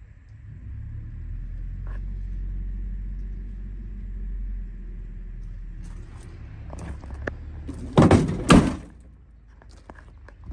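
Cab door of a pickup truck being shut: two loud clunks about half a second apart, some eight seconds in. They follow a low steady rumble and a few small knocks of handling.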